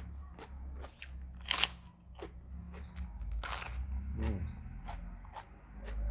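Close-up crunching and chewing of raw bitter gourd, with two loud crisp crunches about one and a half and three and a half seconds in and smaller crackly chewing clicks between.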